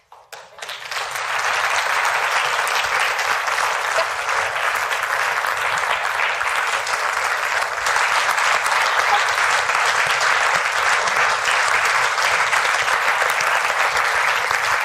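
Audience applauding. The clapping builds up within the first second and then keeps up at an even level.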